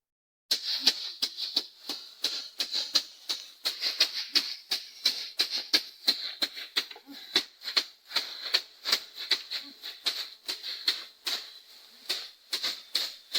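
Dry wheat stalks crunching, heard as rapid, irregular crisp clicks, a few each second, over a steady high hiss.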